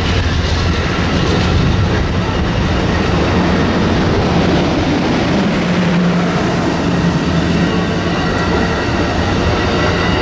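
Amtrak passenger coaches passing: a steady, loud rumble and rush of steel wheels rolling on the rails.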